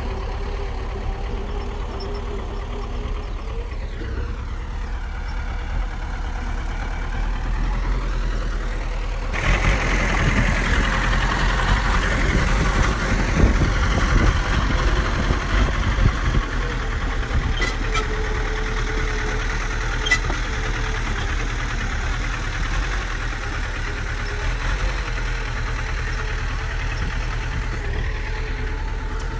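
Heavy diesel engine of earthmoving machinery running steadily. It grows louder and rougher for several seconds in the middle, then settles back, with a couple of sharp clicks a few seconds later.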